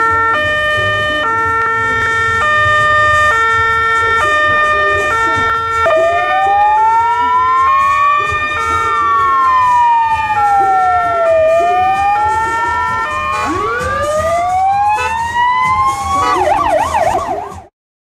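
Police car sirens. A two-tone siren steps between a high and a low note about every two-thirds of a second. About six seconds in, a second siren joins, wailing slowly up and down, and it switches to a fast yelp near the end before the sound cuts off suddenly.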